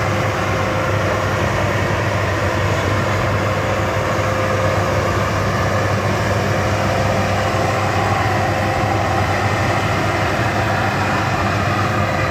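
Rice combine harvester running steadily, a loud continuous engine drone with a steady tone held through it.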